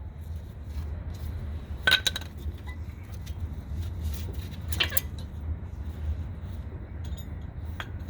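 Worn front brake pads being worked out of the caliper bracket, the metal pad backing plates clinking against the bracket and its retaining clips. Three sharp metallic clinks a few seconds apart, over a steady low hum.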